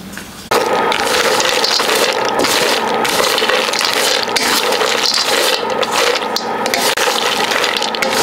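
A steady rush of water that starts abruptly about half a second in.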